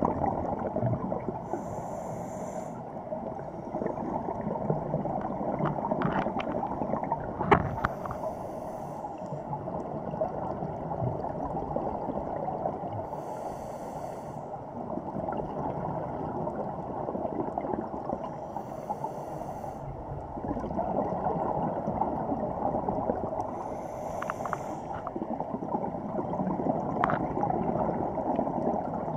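Scuba regulator breathing heard underwater: a breath cycle about every five to six seconds over a steady rush of underwater noise, with a few faint clicks.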